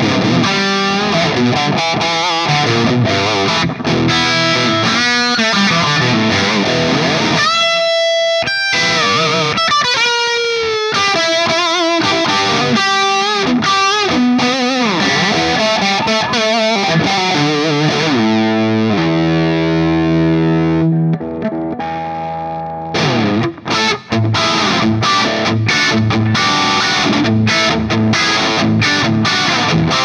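Distorted electric guitar: a 2006 Gibson Les Paul '58 Reissue with Burstbucker pickups played through a Mesa Dual Rectifier Roadster on channel 3 in Vintage mode, recorded through a reactive load into a Celestion Vintage 30 4x12 cabinet impulse response, with reverb. The riffing gives way to a short lead phrase with bent notes about eight seconds in, then a held chord rings out, and choppy rhythm playing closes the passage.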